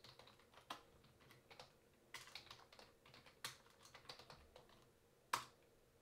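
Faint computer keyboard typing: a dozen or so irregular keystroke clicks, with one louder click a little after five seconds in.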